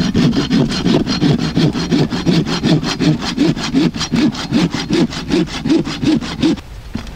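A small homemade folding bush saw cutting a V-notch into the end of a wooden stick with quick, even back-and-forth strokes. The sawing stops about six and a half seconds in.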